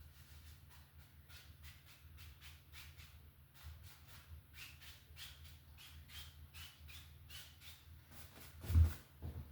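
Paintbrush scrubbing oil paint onto canvas in small circular strokes: a running series of soft scratchy brushes, two or three a second. Near the end there is a single louder thump, followed by a smaller knock.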